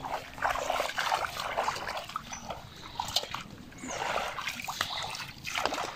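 Irregular splashing and sloshing of feet wading in shallow muddy water, with a metal pot pushed through it.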